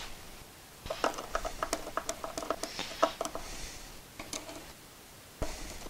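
Pencil tapping and scratching on plywood while marking through the holes of a steel bar held against the box: a quick, irregular run of light clicks for about three and a half seconds, then a single soft knock near the end.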